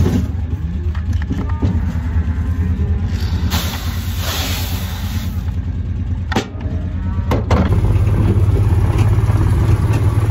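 A vehicle engine idling with a steady low hum. Shelled corn rushes out of a bucket partway through, two sharp knocks follow, and the engine is louder near the end.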